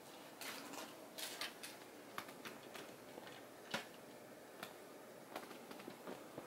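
Faint, scattered clicks and knocks of plastic LEGO parts as the Voltron lion models are handled and pressed together, with the sharpest click a little before four seconds in.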